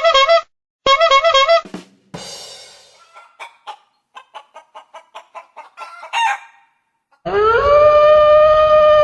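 Retro cartoon sound effects one after another: a warbling tone, a noisy whoosh that fades, a quick string of small pops, and a short squeal. After a brief pause comes a long, loud, rooster-like call that rises at first and then holds steady.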